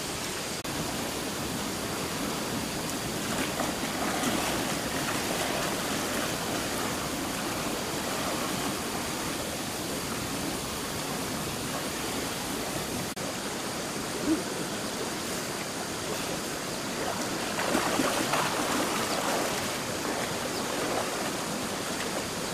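Fast-flowing, swollen stream rushing steadily, with bouts of louder splashing from legs wading through the water.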